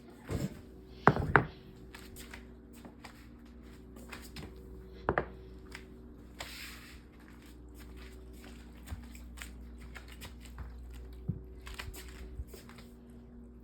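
Cats eating breakfast: many faint crunching clicks and ticks, with a few sharp knocks in the first second and a half and another about five seconds in, over a steady low hum.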